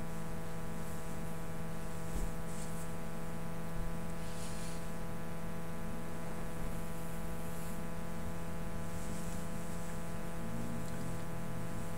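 Steady electrical hum with no music or speech heard, broken only by a few faint, brief hissing sounds.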